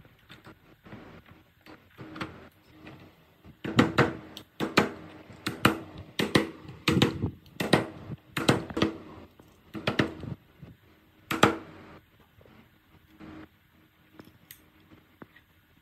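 Hammer tapping on a wooden drift to drive an electric motor's wound stator down into its plastic housing: a run of about fifteen sharp knocks, roughly two a second, beginning about four seconds in and lasting about eight seconds. Lighter handling clicks come before and after.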